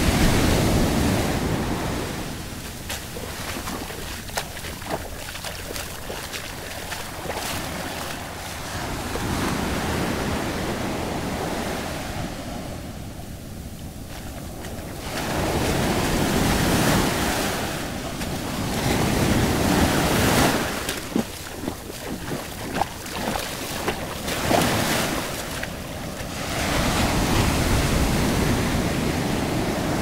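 Small ocean waves breaking and washing up a sandy shore, the surf rising and falling every several seconds as each wave comes in and runs back.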